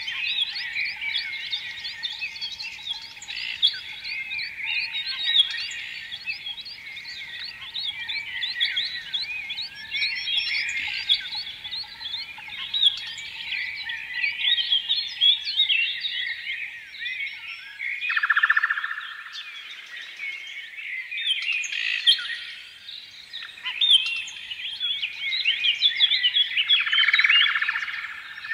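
A chorus of small birds chirping and twittering densely and without pause. A buzzy trill cuts in twice, about two-thirds of the way through and again near the end.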